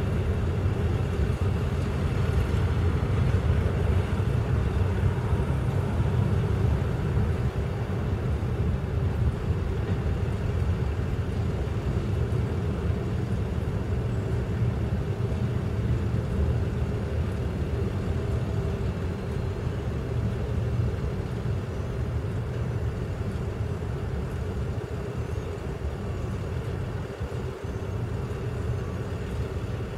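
Covered hopper cars of a freight train rolling past over a grade crossing: a steady low rumble that eases slightly in the second half as the end of the train goes by.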